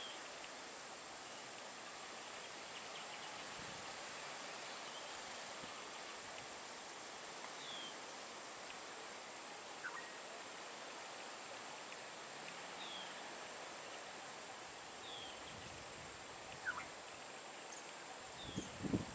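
Steady high-pitched insect drone with a few short bird chirps scattered through it, and a couple of soft knocks near the end.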